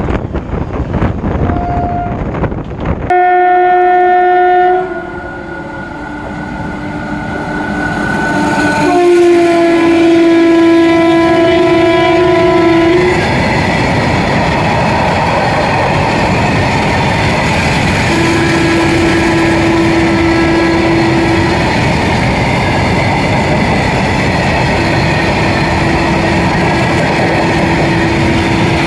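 Passing train: for the first few seconds the rumble and wind of a moving train passing another. Then a locomotive horn sounds, briefly about 3 s in and again longer from about 9 to 13 s. The loaded open freight wagons then roll by with a steady rumble and wheel clatter, broken by two more long horn notes near the middle and the end.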